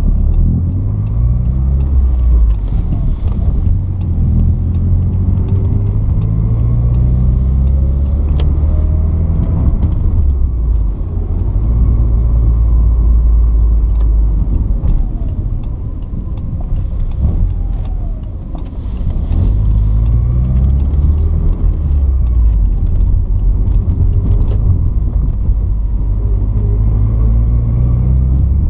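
Porsche 944's 2.5-litre four-cylinder engine driving under load through a five-speed manual gearbox. The engine note climbs and falls back several times as the car accelerates and changes gear, with a brief ease-off in loudness twice along the way.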